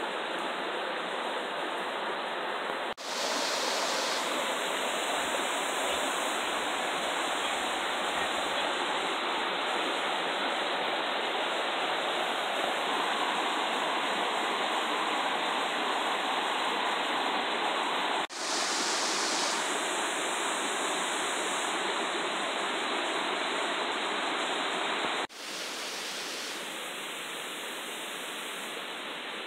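Steady rush of water flowing in a shallow rocky stream, cut short by three abrupt breaks.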